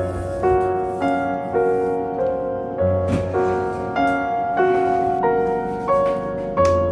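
Background music: a gentle piano melody over a soft, regular beat.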